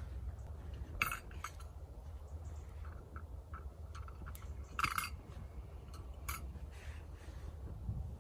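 A few light clinks and taps of small hard items, metal or glass, being handled, the sharpest about a second in and around five and six seconds in, over a steady low rumble.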